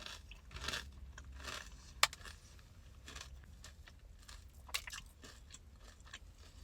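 A person biting into and chewing crunchy fried food close to the microphone, with scattered crisp crunches and a sharp crackle about two seconds in and again near five seconds.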